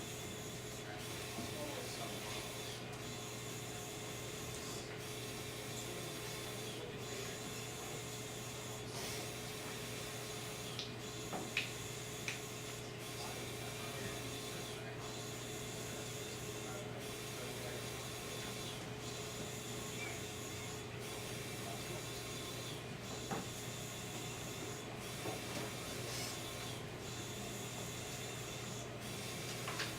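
Steady low electrical or mechanical hum with a faint steady tone above it, broken by a few soft clicks.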